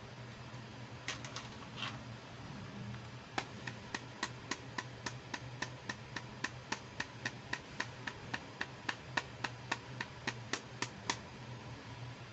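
Small plastic clicks from a toy accessory being worked: a few scattered clicks, then a steady run of about three clicks a second for several seconds.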